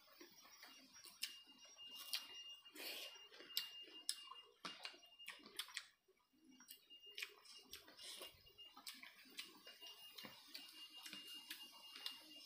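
Quiet eating sounds of a mukbang: irregular sharp clicks and smacks of chewing mouths, with fingers working rice and chicken curry on a plate. A faint high steady tone comes and goes behind them.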